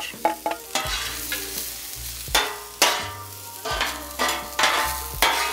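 Diced celery, red bell pepper and okra sizzling on a hot oiled flat-top griddle, with a series of sharp scrapes and taps of a metal spatula on the griddle surface.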